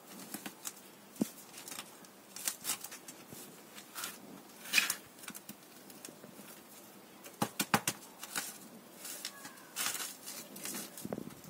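Hands scooping and pressing a light potting mix of soil and perlite around a hoya cutting in a small pot: irregular rustling and crunching of the granular mix with scattered sharp clicks, a few louder ones about a second in, near five seconds and twice close together near eight seconds.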